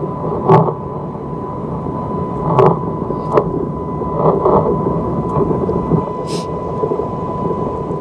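Wind buffeting the phone microphone, a dense irregular rumble, with a few short knocks from the phone being handled and a faint steady tone underneath.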